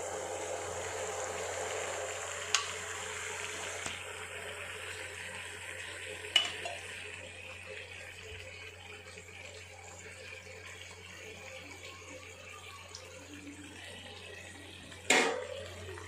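Tamarind and ground-ginger mixture simmering in an iron kadai, a steady hiss that slowly fades. A steel ladle clinks against the pan twice, then once more, louder, near the end.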